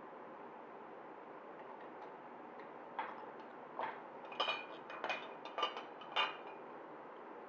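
Thin 18-gauge steel square tubes clinking against each other and the bench vise as they are handled and set back in place: a run of about eight sharp metallic clicks, some with a short ring, starting about three seconds in.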